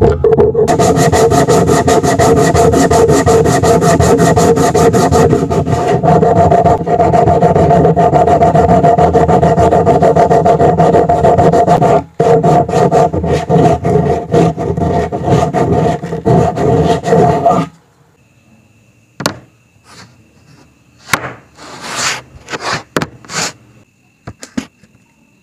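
Sandpaper rubbing against the edge of a wooden corner joint, a loud continuous scraping that stops about eighteen seconds in. A few light knocks of wood follow near the end, as the piece is set down on the bench.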